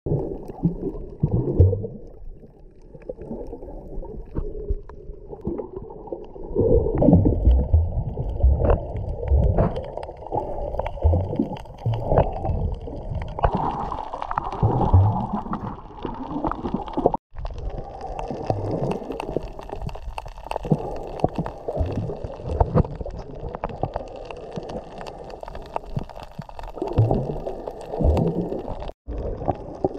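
Water sloshing and gurgling around a submerged camera, heavily muffled, with irregular low rumbles and thumps from movement in the water. The sound drops out briefly twice, a little past halfway and near the end.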